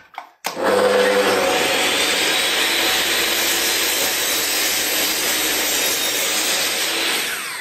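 Metabo sliding mitre saw starting up about half a second in and cutting a kerf part-way into a chipboard plate, a loud steady running noise that begins to wind down near the end.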